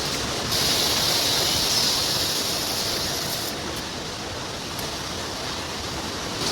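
Steady machinery noise from a fin-and-tube condenser assembly machine, with a louder hiss from about half a second in that fades by about three and a half seconds, and a few faint clicks.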